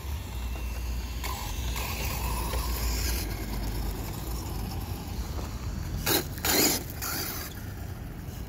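Brushless-powered RC monster truck driving on loose gravel, its tires crunching and scrabbling over the stones. About six seconds in come two short, loud bursts of gravel scatter, half a second apart.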